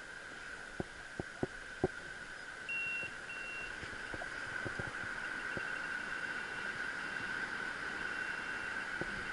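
Metal-detecting pinpointer beeping as it is probed into dug beach sand over a buried target. About three seconds in it gives two short beeps, and later a fainter beep pulses on and off at the same pitch. A few soft knocks come in the first two seconds, over a steady high hum.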